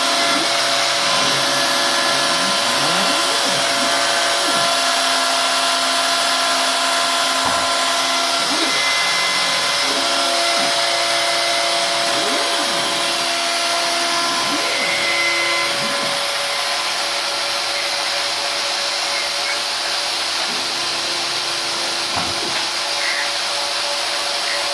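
Home-converted CNC milling machine running: a steady high-speed spindle hiss with constant whining tones. Short rising and falling whines come from the axis drives as the machine moves, and the noise eases slightly past halfway.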